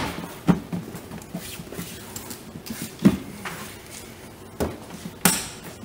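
A handful of light knocks and clicks, spread out, from a plastic windshield cowl panel being handled and pressed into place. The loudest come about three seconds in and near the end.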